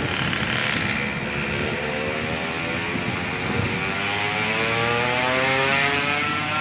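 A motor vehicle's engine running under acceleration, its pitch climbing steadily over the last few seconds as it revs up.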